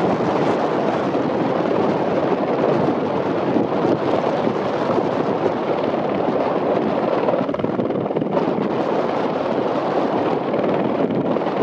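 AS350 Squirrel helicopter hovering close overhead: a steady rush of rotor and turbine noise that holds level throughout, with some wind on the microphone.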